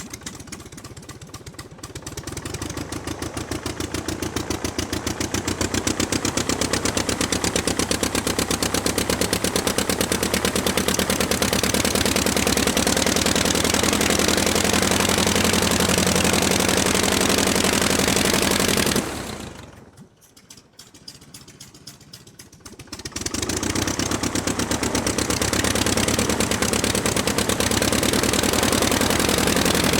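Piston aircraft engine running with fast, even firing pulses. It builds up from a low idle over the first few seconds and holds steady. About two-thirds through it is throttled back to idle for a few seconds, then run back up.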